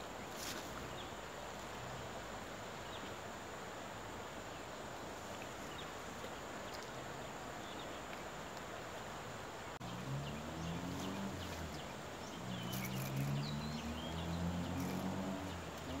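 Steady insect and cricket chorus with a few short high chirps. From about ten seconds in, the low, uneven whirr of a spinning reel being cranked joins it, rising and falling in pitch as a small tilapia is reeled in.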